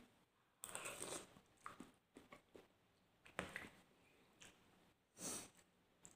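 Faint sounds of a person eating instant cup noodles: slurping and chewing, with a few light clicks of a fork against the cup.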